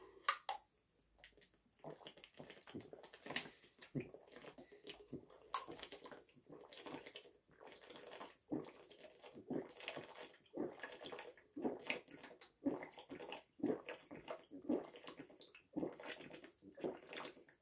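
A person chugging water from an upturned plastic bottle: a run of irregular gulps and glugs, about one or two a second.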